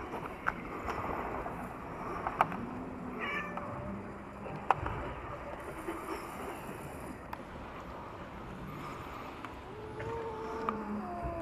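Cats giving several low, drawn-out calls in a standoff over a freshly caught fish, with a couple of sharp clicks in the first five seconds.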